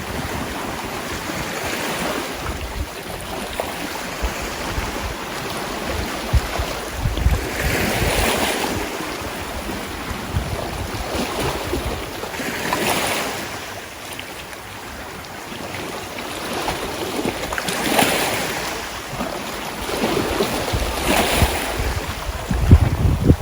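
Sea waves washing in, the noise swelling and falling back every few seconds, with wind rumbling on the microphone.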